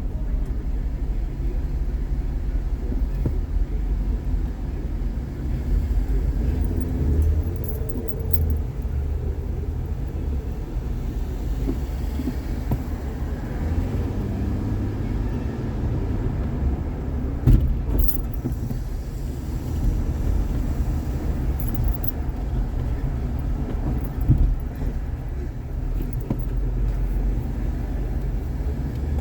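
Car driving on city streets, heard from inside the cabin: a steady low rumble of road and engine noise, with two brief thumps in the second half.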